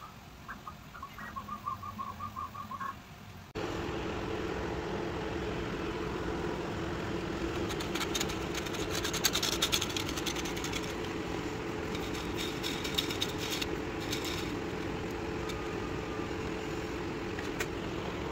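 Original Prusa XL 3D printer running, its stepper motors making short pitched chirps. After a sudden cut comes a steady mechanical hum, with a run of clicks and rattles in the middle.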